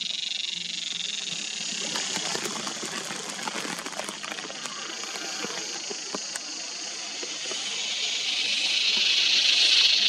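A large cicada singing: a loud, continuous high-pitched buzzing drone with a rattling quality, like a rattlesnake, that grows rougher in the middle and swells louder near the end.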